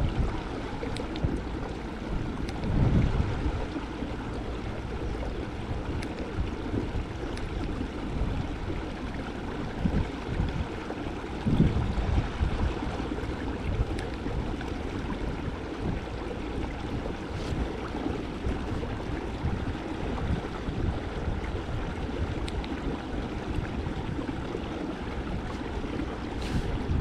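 Water lapping against a kayak hull, with wind buffeting the microphone and a few low thumps.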